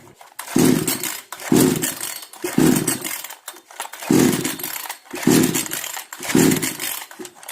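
58 cc two-stroke chainsaw being pull-started on its recoil starter: six pulls about a second apart, each a short cranking burst, and the engine never catches. The saw will not start even with a new spark plug fitted.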